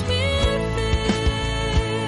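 Background music with a sustained melody over a steady beat.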